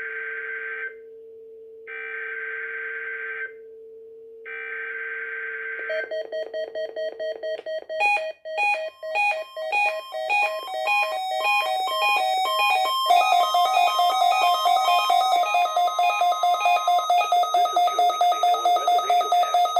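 Emergency Alert System SAME header: three harsh digital data bursts of about a second each, the coded start of the weekly test, sent by the NOAA Weather Radio transmitter. About six seconds in, the weather radio's alert takes over: rapid electronic beeps that jump between pitches, settling after about thirteen seconds into a fast, steady repeating beep.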